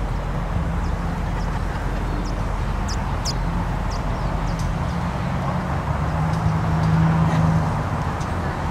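Steady outdoor background rumble with a low hum that swells for a moment about six seconds in, and a few short high chirps near the middle.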